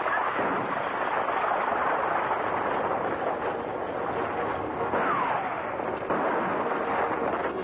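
Stagecoach team and pursuing horses galloping on a dirt road: a dense, steady clatter of hooves and rolling wheels, with a couple of sharp cracks and a short falling whine about five seconds in.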